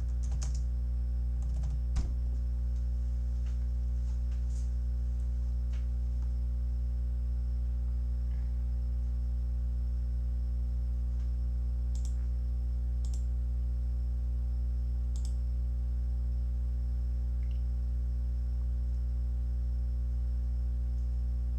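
Steady electrical mains hum, with a handful of scattered computer keyboard clicks, one a little louder about two seconds in.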